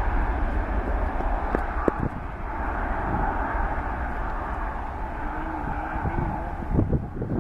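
Boeing 747 jet engines at takeoff thrust during the takeoff roll: a steady, loud rushing noise over a deep rumble. Near the end, gusts of wind buffet the microphone with low thumps.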